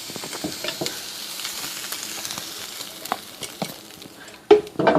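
Chicken sizzling as it cooks, with small scattered clicks of a utensil. The sizzle thins out near the end, and two loud clatters follow.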